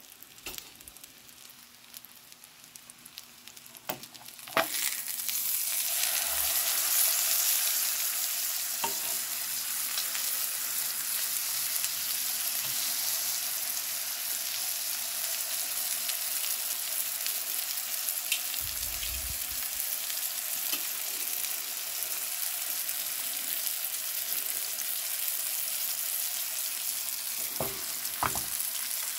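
King mackerel steaks frying in butter in a nonstick pan: a steady sizzle, faint at first. About four and a half seconds in there is a knock, and the sizzle becomes much louder and stays loud, with a few light knocks near the end.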